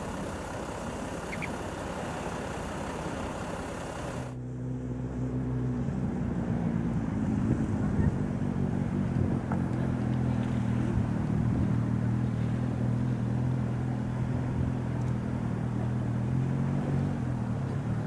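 Rushing outdoor noise that cuts off abruptly about four seconds in, giving way to a steady low engine hum with a few held tones.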